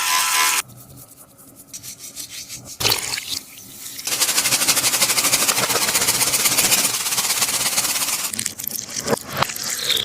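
Taba (tape) squishy being squeezed and kneaded by hand, making a crackly, sticky crinkling. After a brief loud rub at the start it goes quiet with a few soft clicks, and from about four seconds in a dense, fast crackle runs until near the end.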